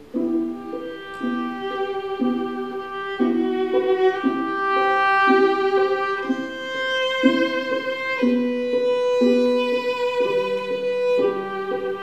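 Instrumental music led by a violin playing a sustained melody over a lower accompaniment that repeats short notes about twice a second.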